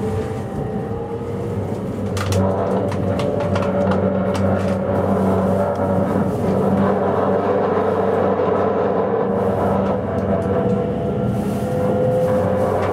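Running noise inside a JR East E257 series electric limited express: a steady rumble of wheels on rail, a motor whine that slowly rises in pitch as the train gathers speed, and a cluster of clicks from the wheels over the track about two to four seconds in.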